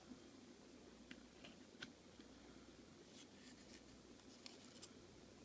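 Faint scraping and ticking of 2014 Bowman Sterling football trading cards sliding against one another as they are flipped through by hand, with a few scattered scrapes between about one and five seconds in.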